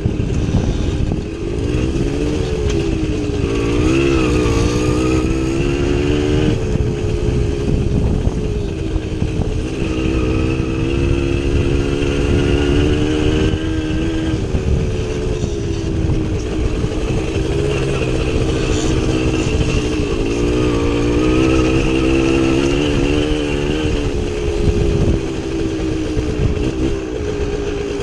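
Small two-stroke motorcycle engine running under way off-road, its pitch rising and falling every few seconds as the throttle opens and closes, over a steady low rumbling noise.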